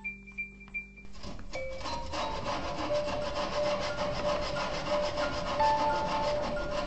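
Back saw cutting into a block of limewood, steady back-and-forth strokes starting about a second in.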